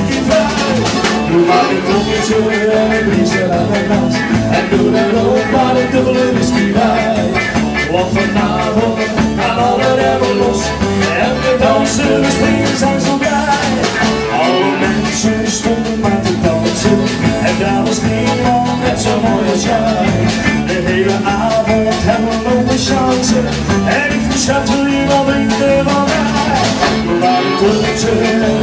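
A live cover band playing an upbeat rock song: drums keeping a steady beat under keyboard and electric guitar.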